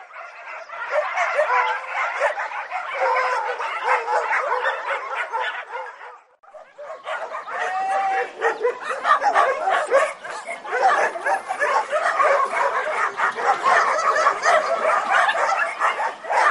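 Many dogs barking and yelping at once in a dense, continuous chorus. It drops out briefly about six seconds in, then resumes.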